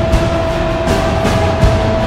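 Background music: a long held note over a steady, heavy beat that hits about every three-quarters of a second.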